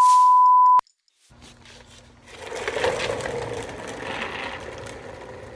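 Steady one-pitch bleep tone, like a censor bleep, lasting under a second and cutting off abruptly. After a moment of silence comes a rough, indistinct background noise.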